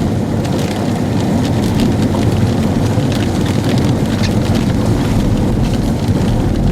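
Heavy storm noise: a steady low rumble of wind and a running vehicle, with scattered raindrops ticking on it.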